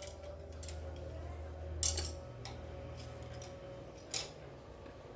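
Small metallic and plastic clicks and taps as an SSD and its mounting hardware are handled and fitted into a laptop's drive bay, with two sharper clicks, about two seconds in and about four seconds in. A low steady hum runs underneath.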